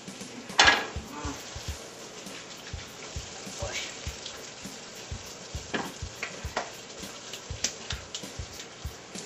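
Kitchen faucet running into a stainless steel sink while hands are rubbed and rinsed under the stream. There is a loud splash-like burst about half a second in, and a few light clinks against the sink.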